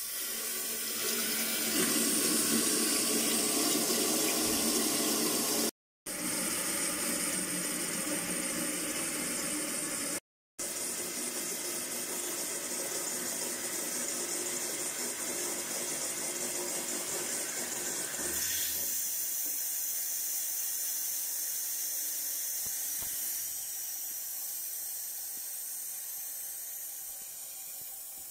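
Water rushing in through the float-operated fill valve of a wall-hung toilet cistern as the tank refills, a steady hiss that cuts out twice briefly. About two-thirds of the way through it becomes thinner and quieter, and it fades slowly as the tank fills toward shut-off.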